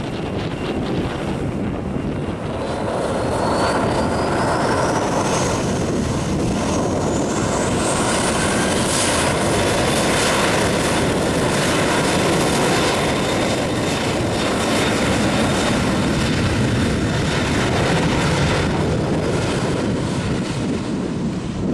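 Boeing 737-800's CFM56 jet engines spooling up: a whine rising steadily in pitch over about six seconds as the sound grows louder, then holding at high thrust. Wind noise on the microphone underneath.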